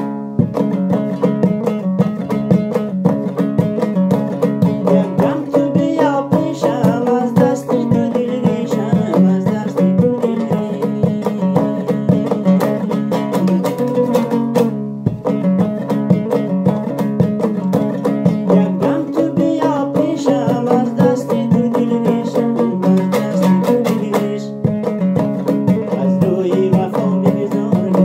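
Hazaragi dambura, a two-string, long-necked Afghan lute, strummed rapidly with the fingers in a steady, driving rhythm, playing a Hazaragi folk tune, with a brief break about halfway through.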